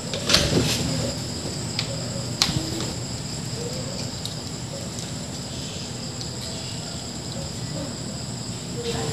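A few sharp clicks and taps as a soldering iron and a circuit board are handled. The loudest come about half a second in, with single ones near two and two and a half seconds. A steady high-pitched trill runs underneath.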